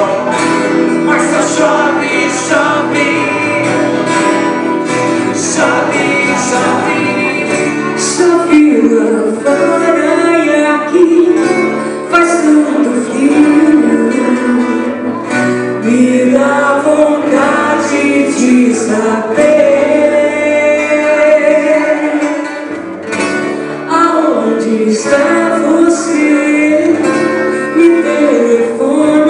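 A small live band playing a song: several acoustic guitars strummed under singing, with a woman singing lead into a microphone through the PA speakers.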